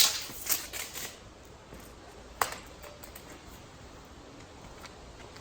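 A few light clicks and knocks in the first second, then a single sharp click with a brief ring about two and a half seconds in, over a faint steady hiss.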